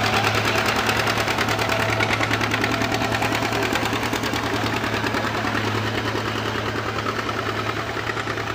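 Super Farm class pulling tractor's diesel engine running hard at a steady high speed, with a fast, even pulsing beat. It fades slightly over the few seconds.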